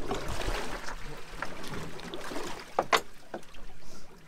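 Water sloshing against a small boat's hull with wind on the microphone, and a couple of short, sharp knocks about three seconds in.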